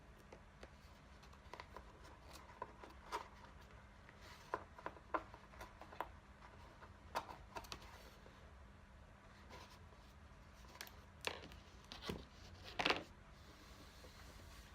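Light, scattered clicks and taps of a small precision screwdriver and tiny phone screws being handled on a work surface, with a louder short clatter about twelve to thirteen seconds in.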